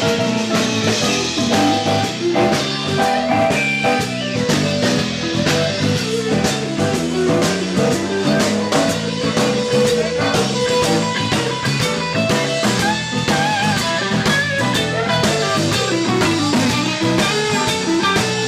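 Live blues band playing an instrumental passage: electric guitar over bass and drums keeping a steady beat, the lead line bending its notes.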